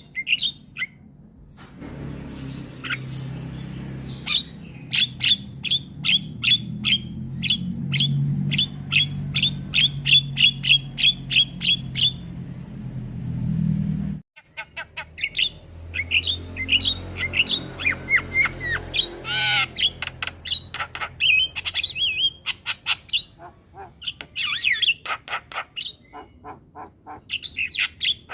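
Javan myna singing loudly: a long run of sharp, evenly repeated notes, about two to three a second, over a low hum, then after an abrupt cut about halfway through, a varied stream of whistles, rising and falling calls, chatter and squawks.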